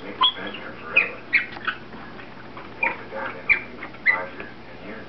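Wood screws squeaking in the old dry wood of a dining chair's seat board as they are turned out with a screwdriver: a string of short, high squeaks, each dropping in pitch, at uneven intervals.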